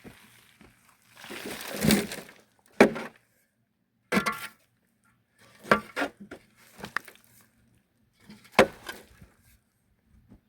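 Hand digging tool working gravelly murram soil: a long scrape, then a handful of separate sharp strikes and short scrapes of the blade in the earth.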